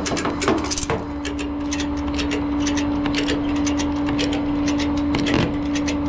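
An engine idling: a steady hum and low rumble with irregular sharp ticks over it.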